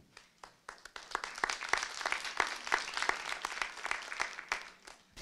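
Audience applauding, picking up about a second in and dying away near the end.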